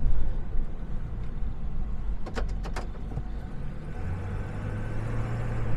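Tow truck engine running, heard from inside the cab while the truck maneuvers to back up, with a low steady rumble. Two sharp clicks come near the middle. About four seconds in, an engine hum sets in and rises slightly in pitch as it pulls away.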